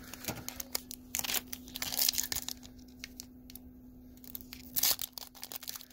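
Foil wrapper of a Pokémon Shining Fates booster pack crinkling in the hands and being torn open along its top edge, in irregular crackling bursts, with a louder tear near the end. A faint steady hum runs underneath.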